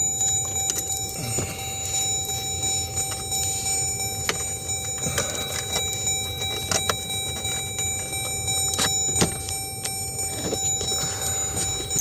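Dashboard HVAC system running with its blower fan blowing air steadily, punctuated by several scattered clicks and knocks.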